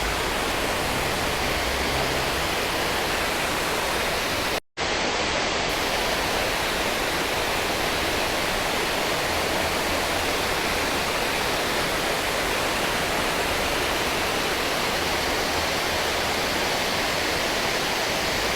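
Water pouring over a creek spillway: a steady, even rush of falling water. It cuts out for a split second about four and a half seconds in.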